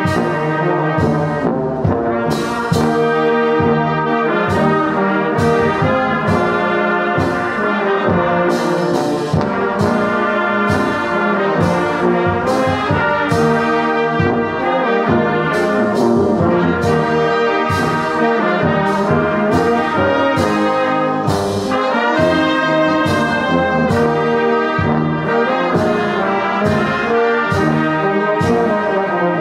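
Church brass band of trumpets, trombones, tubas and sousaphone, joined by flutes and clarinets, playing a hymn tune together at a steady full volume.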